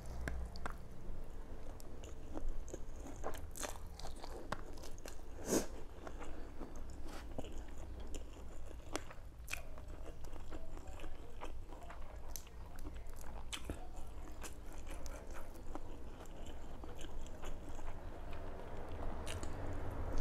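A person chewing and crunching mouthfuls of a spicy rice-noodle salad with shrimp, close to the microphone, with many small crunches and mouth clicks. The sharpest crunch comes about five and a half seconds in. A steady low hum runs underneath.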